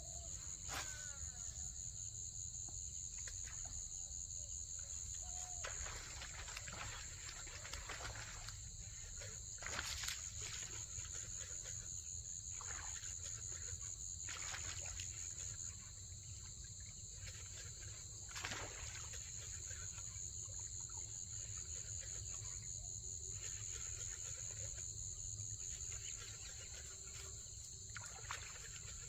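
Steady, high-pitched insect chorus buzzing without a break, over a low rumble, with a few brief knocks or clicks.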